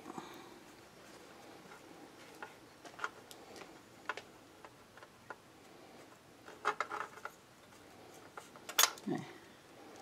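Faint, scattered clicks and taps of small metal parts as a leaf blower carburetor is taken apart by hand over a metal pan, with a sharper click near the end.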